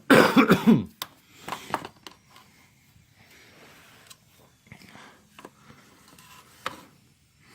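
A brief vocal sound, then scattered light clicks and scrapes of handling, with one sharper click near the end.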